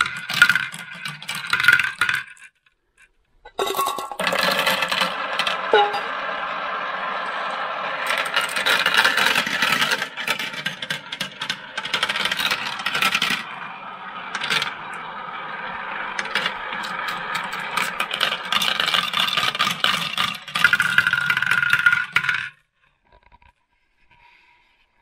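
Glass marbles rolling and clattering down a plastic marble run, rattling through the tracks and clinking as they drop into the catch tray. The sound stops briefly about two and a half seconds in, then runs on until it cuts off about three seconds before the end.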